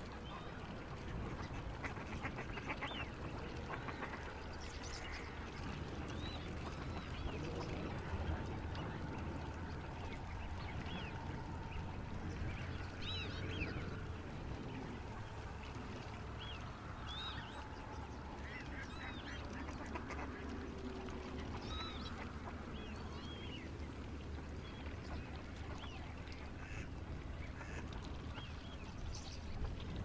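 Many birds calling, short calls overlapping throughout, over a steady low rumble.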